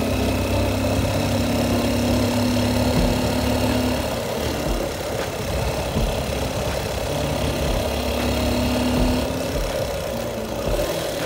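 Motorcycle engine running steadily while being ridden up a hill, heard from on the bike.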